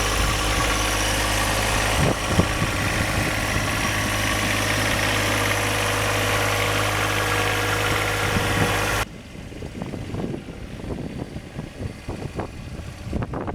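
John Deere 1025R compact tractor's three-cylinder diesel engine running steadily. About nine seconds in it cuts off abruptly, leaving a much quieter stretch of scattered irregular clicks.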